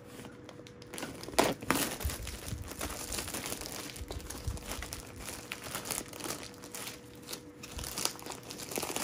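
Clear plastic wrap and bag crinkling and crackling as they are handled and pulled off a new desk fan's parts. It starts about a second in, with the sharpest crackle just after.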